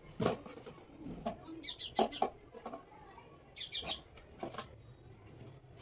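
A hard plastic casserole lid knocking and clattering as it is handled and put down, with a couple of short, high, falling chirp-like calls.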